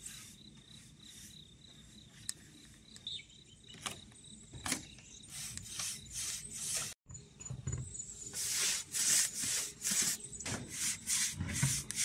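A flat paintbrush rubbing paint onto bamboo floor slats in repeated strokes, which come quicker and louder in the second half, about two a second. Insects trill steadily through the first half.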